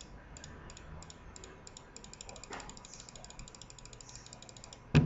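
A computer mouse button being clicked rapidly and irregularly, several faint clicks a second, over and over. The clicking stops just before one loud, sharp knock near the end.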